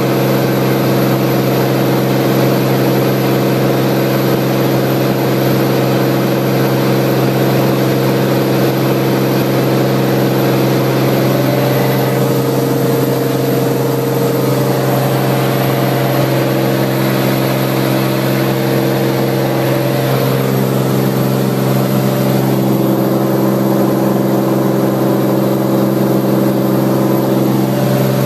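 Cirrus SR20 light aircraft's single piston engine and propeller running in a steady, loud drone: a deep hum with a ladder of overtones above it. A few of the higher tones shift slightly in pitch twice along the way.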